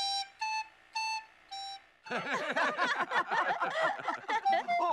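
A recorder tune played back from a cassette tape: a few slow, separate notes. From about two seconds in, several people laugh together.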